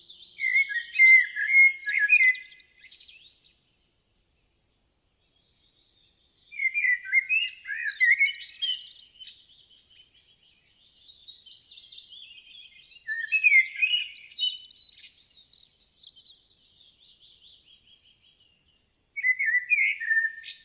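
Songbird singing in bouts of quick, varied chirps and warbles. Four bouts, with a few seconds of silence after the first.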